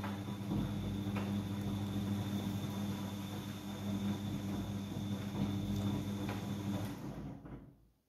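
Siemens iQ100 front-loading washing machine running, its motor humming steadily with a faint high whine as the drum tumbles the laundry. A light knock comes about a second in, and the sound fades out quickly near the end.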